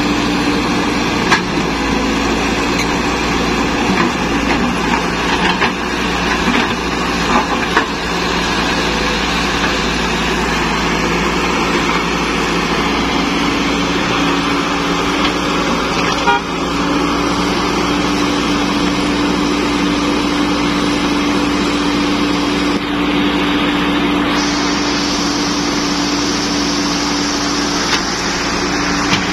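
Caterpillar E120B excavator's diesel engine running steadily under working load as the machine swings and digs. A steady tone in the drone drops away a few seconds in and returns a little past the middle, with a few light knocks along the way.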